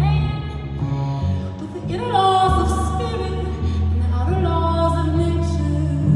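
A woman singing long held notes while playing an upright double bass, her voice sliding up into new notes about two seconds in and again a little after four seconds, over low sustained bass notes.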